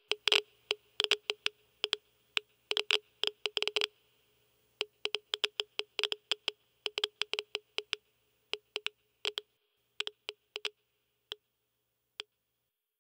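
Geiger counter clicking at an irregular, random rate, a dense run of clicks at first, then after a short pause about four seconds in, sparser clicks that die away near the end.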